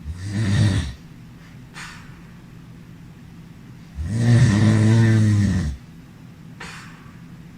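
A teenager snoring: a short snore near the start, then a longer, louder one of about two seconds midway, with faint breaths between them.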